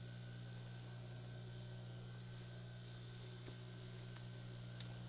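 Steady low electrical hum with a faint high whine above it, and one sharp click near the end.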